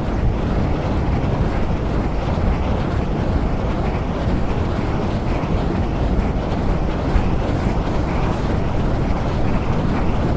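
Wind blowing through a forest: a steady, unbroken rushing noise with a heavy low rumble.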